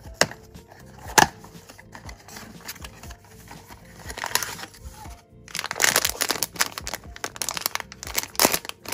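A cardboard blind box's sealed top flap being pried open, with two sharp snaps near the start, then from about five seconds in the loud crinkling and tearing of the foil-lined plastic bag inside being ripped open. Background music plays underneath.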